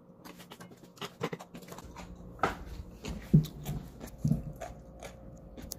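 Wet smacking and sucking mouth noises of someone licking his fingers after eating pork ribs, with a few short low grunts and rustling and knocks as he moves about.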